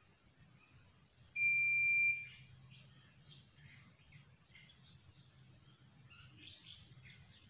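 A single high-pitched electronic beep, steady and under a second long, about a second and a half in, followed by faint bird chirps.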